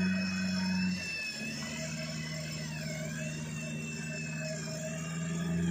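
Winch on a mud-covered 4x4 pickup pulling it through deep mud, its motor whining with the vehicle's engine running under it. The steady low hum drops in pitch about a second in, as if the load comes on, and rises again near the end, with a higher wavering whine over it.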